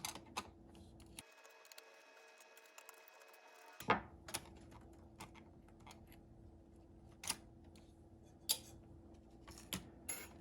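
Sparse small plastic clicks and taps as parts of a car radio head unit are pried, unclipped and handled during disassembly, the loudest about four seconds in, over a faint steady hum.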